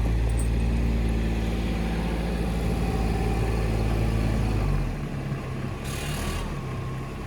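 Kubota RTV 900's three-cylinder diesel engine running steadily while the machine pushes snow with its front plow. Its pitch and level drop about five seconds in as it eases off, and a brief hiss comes about a second later.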